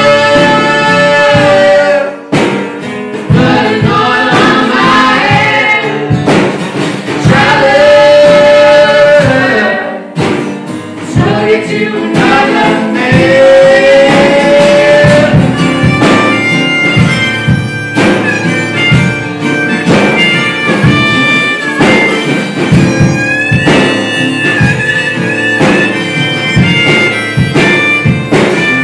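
Live folk-Americana duo: two voices singing long held notes together over strummed acoustic guitar and drums. About halfway through the voices give way to a harmonica solo over the guitar and drums.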